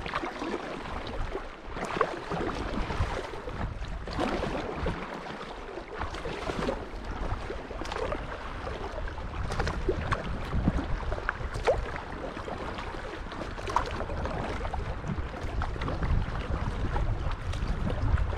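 Water lapping and splashing against a moving kayak, with small irregular drips and splashes. A low wind rumble on the microphone grows stronger near the end.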